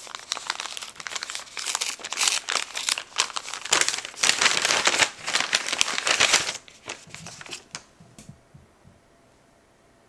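Kraft paper packet crinkling and rustling as it is handled, unfolded and opened. The sound is loudest around four to six seconds in, thins to a few light rustles, and stops about eight seconds in.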